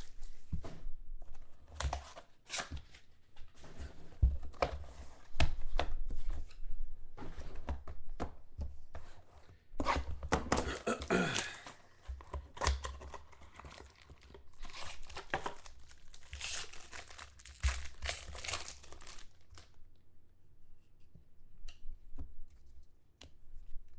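Trading-card box packaging and a foil pack wrapper being torn open and crinkled, with irregular rustling and sharp clicks, then cards being handled; the rustling dies down to a few light clicks for the last few seconds.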